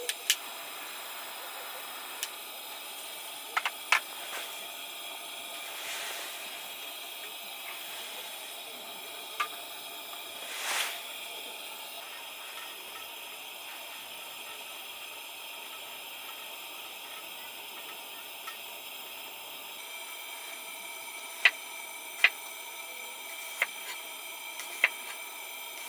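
Steady hiss with a few sharp clicks scattered through, plus one short swell of rushing noise about eleven seconds in.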